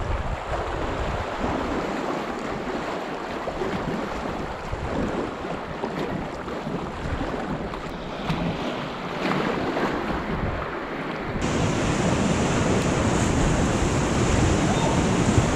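River water rushing and splashing around a packraft on a fast-flowing river, with wind buffeting the microphone. About eleven seconds in the sound changes abruptly to a louder, hissier rush.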